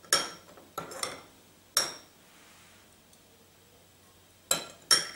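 Metal spoon clinking against a ceramic bowl while scooping an oil-and-spice marinade: six short, sharp clinks, each with a brief ring, four in the first two seconds and two close together near the end.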